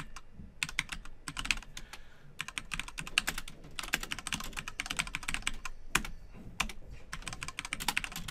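Typing on a computer keyboard: quick runs of keystrokes separated by short pauses.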